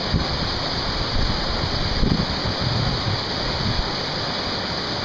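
Steady rush of a river running over rocks.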